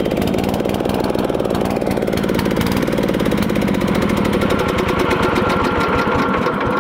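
Small riding-mower engine running through a short tin-can exhaust, with rapid, even firing pulses and a faint whistle-like tone joining about two-thirds of the way in. It cuts off at the very end. It is running badly, which the owner thinks may be a blown head gasket.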